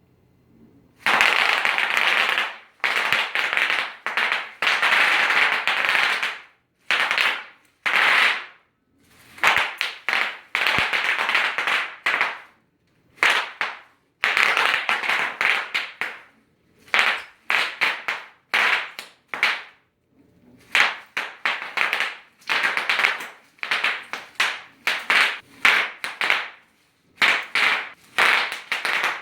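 Bubble wrap being popped: bursts of rapid crackling pops, each lasting half a second to two seconds, with short pauses between them.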